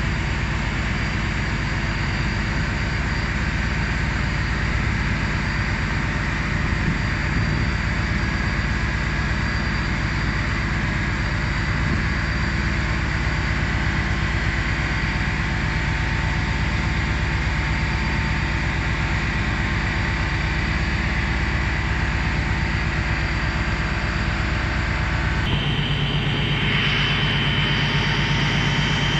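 Machinery at a gold leaching plant running steadily: a dense mechanical hum with several steady whining tones over it. About 25 seconds in the sound changes suddenly to a different mix with a new, higher whine.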